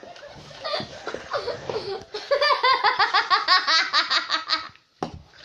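A boy laughing hard: softer giggling at first, then about two seconds in a loud run of rapid, high-pitched ha-ha pulses that stops shortly before the end.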